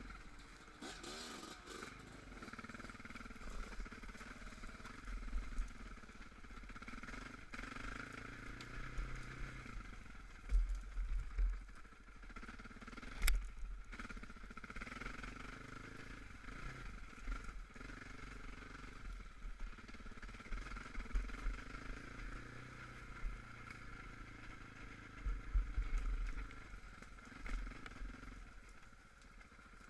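Off-road quad engine running under load while riding over rough ground, its pitch shifting with the throttle. Low thumps from bumps come in now and then, with a sharp knock about halfway through.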